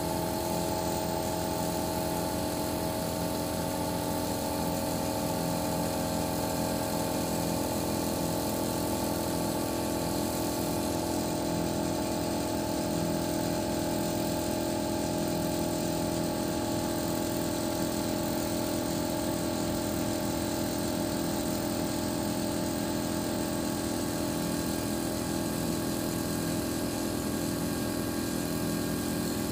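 Engine of a truck-mounted boom lift running steadily, a constant hum with several pitched tones, driving the boom as the bucket is repositioned.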